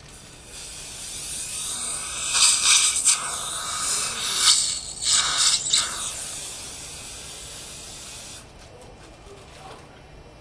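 A hiss of rushing air that starts about half a second in and stops sharply after about eight seconds, with several louder surges in the middle.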